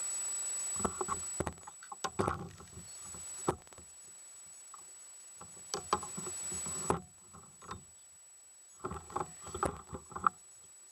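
Clusters of light knocks and clicks from fishing gear being handled aboard a plastic kayak, coming in three bursts. A faint, steady, high-pitched whine runs underneath.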